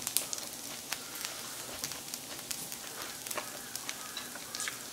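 Pork-belly fried rice crackling and sizzling on a hot electric grill plate, with scattered small sharp clicks.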